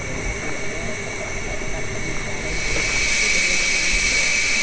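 Steam hissing from around the cylinders and valve gear of the Coffee Pot, South Australia's Steam Motor Coach No. 1, standing at rest. The hiss is steady and grows louder and brighter about three seconds in.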